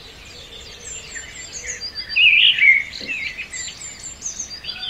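Several birds chirping and twittering, busiest about two seconds in, over a faint steady background.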